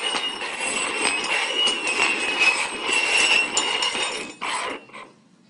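Hard containers being shuffled and slid around on a hard surface: a continuous scraping rattle with many small clicks. It stops about four seconds in, then comes one last short scrape and a click.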